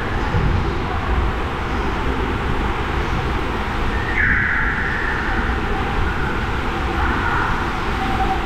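Water rushing through an enclosed tube water slide as a rider slides down it, a steady loud rushing with a deep rumble. About four seconds in a higher whooshing note drops in pitch and then holds.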